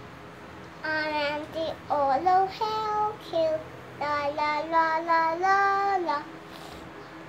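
A voice singing a short sung phrase of held, gliding notes, starting about a second in and stopping about six seconds in.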